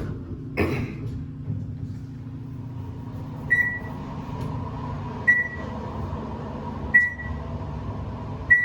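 Otis elevator car travelling up with a steady hum of its machinery. A thud comes about half a second in, then a short single-tone beep sounds four times at even spacing of under two seconds, typical of floor-passing signals as the car climbs.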